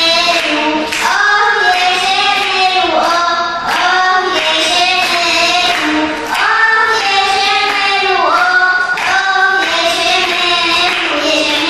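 A young girl singing an Arabic madih, a praise song for the Prophet, in a clear melodic voice with long held and gliding notes, while hands clap along in time.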